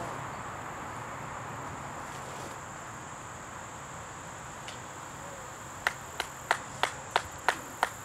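Steady high-pitched buzz of insects in summer trees. From about six seconds in, sharp claps come at about three a second, as a person applauds a throw.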